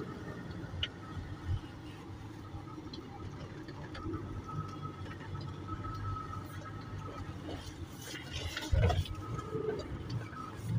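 A 4x4 driving slowly along a flooded, muddy road, heard from inside the cabin: a steady low engine and road rumble with water sloshing and splashing under the tyres. A loud thump comes near the end.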